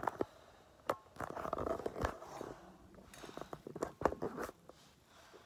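Handling noise of a phone being moved around: scattered clicks and knocks with a stretch of rustling.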